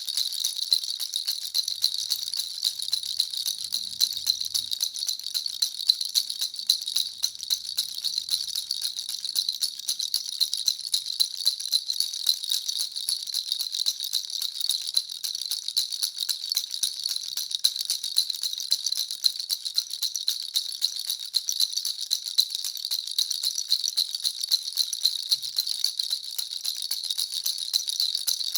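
Handheld baby rattle (jhunjhuna) shaken steadily without pause, a dense, fast, high-pitched rattling.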